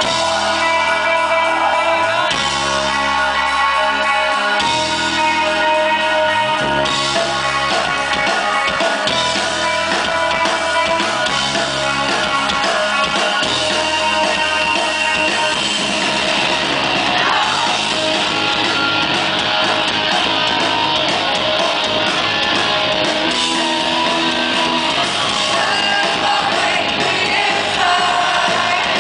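Rock band playing live and loud: electric guitars, bass and drums, with a voice singing over them.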